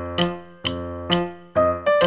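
Background piano music: a melody of single struck notes, about two a second, each ringing and fading.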